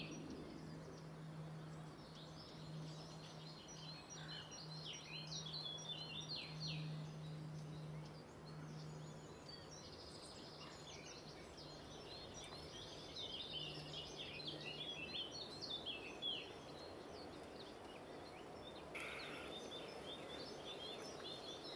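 Small birds chirping and singing on and off over a faint background hiss, with a faint steady low hum under them that stops about two-thirds of the way through.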